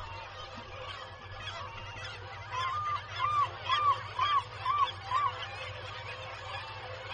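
Black-legged kittiwake calling a run of six loud, arching notes, about two a second, a few seconds in. Behind it runs the steady din of the nesting colony's other calls.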